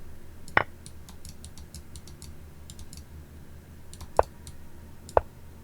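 Computer mouse clicking three times, sharp and separate, with many faint light ticks in between.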